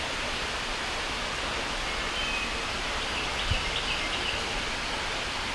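Steady outdoor background hiss with a few faint, short, high bird chirps about halfway through, and a brief low thump about three and a half seconds in.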